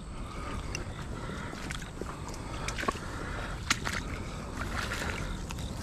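Creek water sloshing and trickling, with scattered light clicks and knocks.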